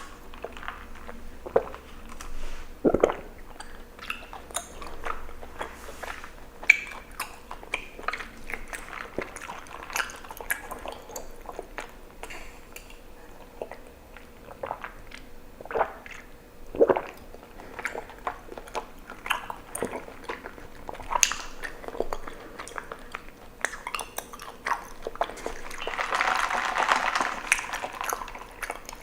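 Close-up mouth sounds of someone chewing tapioca pearls from bubble tea: many short, sticky, wet smacks and clicks, with a longer wet stretch near the end.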